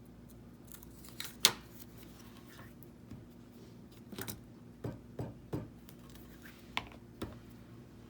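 About ten sharp, irregular clicks and snips of a small cutting tool as the corners are cut off a paper topper, the loudest about one and a half seconds in, over a faint steady hum.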